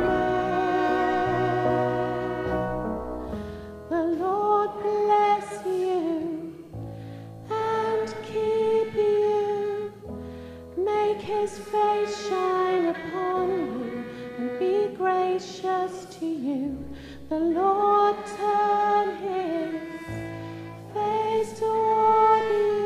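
A slow song: a singing voice in long held phrases over sustained chords, the bass note changing about every three seconds.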